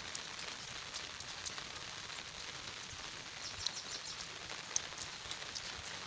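Steady light rain falling on leaves and the wet ground, an even hiss with scattered faint drip ticks.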